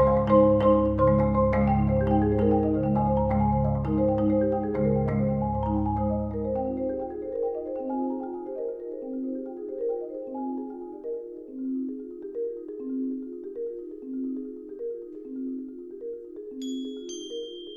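Background music on mallet percussion, marimba-like. The bass and the dense run of notes fade out about halfway, leaving a sparse repeating figure, and high bell-like notes come in near the end.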